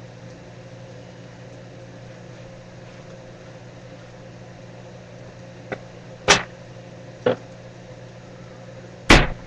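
A steady low hum, with four short sharp knocks in the second half, the last one the loudest.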